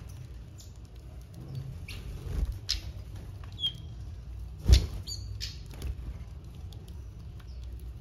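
Small aviary finches feeding at a wooden seed tray: scattered sharp taps and clicks, one louder knock about halfway through, and a few brief high chirps.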